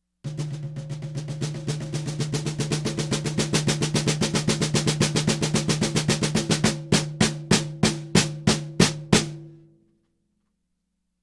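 A drum fitted with a low-volume mesh head is played as a fast roll that grows louder for about six seconds. It then takes about eight slower, harder single strokes, and its pitched ring dies away just under ten seconds in.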